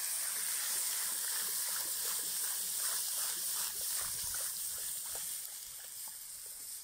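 Water pouring in a steady stream from a plastic jerrycan into a hot cast-iron kazan of fried ribs and meat, splashing onto the meat and sizzling as it hits the hot pot. The pour eases slightly near the end.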